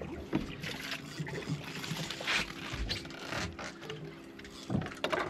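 Water splashing and trickling around a fishing boat, with a few knocks and a steady mechanical hum coming in about a second and a half in.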